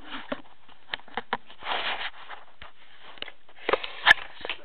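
Handling noise from a camera being picked up and turned: scattered light clicks and knocks, a short rustle or breath about two seconds in, and a cluster of knocks near the end.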